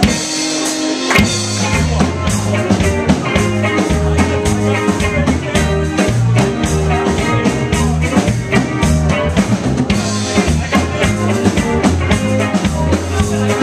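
Live rock band playing amplified: electric guitar over a drum kit keeping a steady beat, with the low end coming in about a second in.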